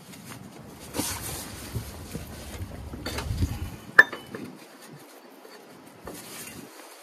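A metal double-step pulley being handled and fitted onto a lawn tractor's crankshaft: rustling and scraping with a low rumble for the first few seconds, then one sharp metallic clink about four seconds in.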